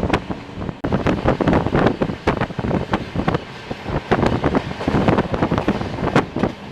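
Passenger train running, heard through heavy wind buffeting on the microphone, with frequent irregular knocks and gusts.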